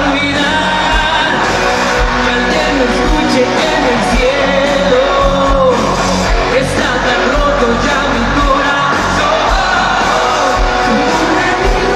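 Live rock band playing loud, with electric guitar and drums and a singer's voice carried over the top, a steady kick-drum thump underneath.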